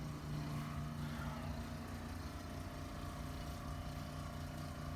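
Steady low machine hum, with one strong low tone and a few fainter higher tones, unchanging throughout.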